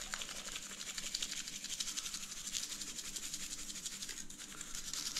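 Seasoning shaken from a shaker onto raw fish fillets in a foil pan: a steady, fast, fine rattle and hiss of falling granules.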